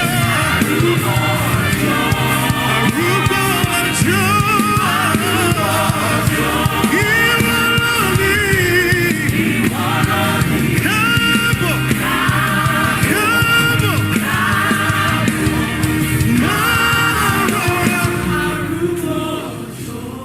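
Gospel worship song sung by a choir or congregation with instrumental accompaniment, fading down near the end.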